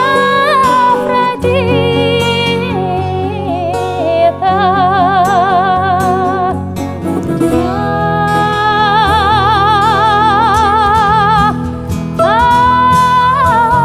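A woman singing a Russian song in long held notes with wide vibrato, the longest about four seconds in the middle, over plucked bouzouki and guitar accompaniment.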